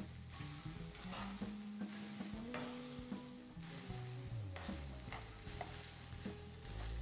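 Ground beef sizzling as it fries in oil in a skillet. A fork stirs it and scrapes against the pan now and then.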